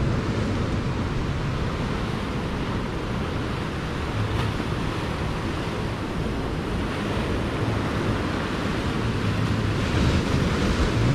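Ocean surf washing steadily, with wind noise on the microphone.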